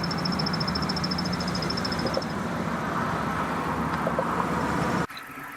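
Steady road noise of a vehicle on the move, with a low engine hum and a fast, high ticking through the first couple of seconds. It cuts off about five seconds in to a much quieter hum.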